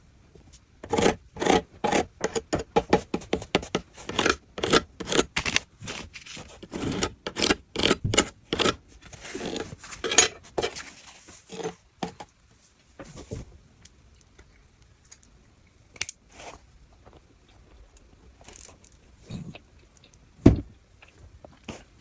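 Handmade paper blind bag and its paper cutout toys being handled: dense crinkling and scraping of paper for about ten seconds, then scattered light taps, with one sharp tap near the end.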